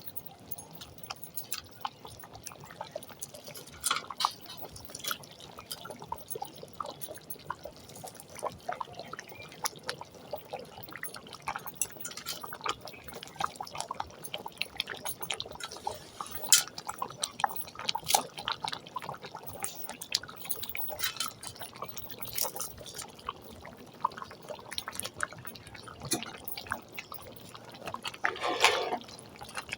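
Moong dal simmering in a pan, with irregular bubbling pops and plops. There is a brief louder sound near the end.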